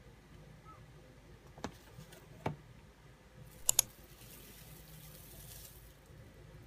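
Plastic wrap rustling and crinkling as it is peeled off a pizza in a cardboard box, from about halfway in, after a few light taps and a quick double click.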